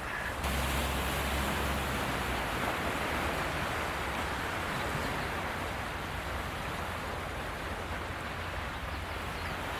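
Steady wash of sea surf with wind rumbling on the microphone, changing abruptly about half a second in.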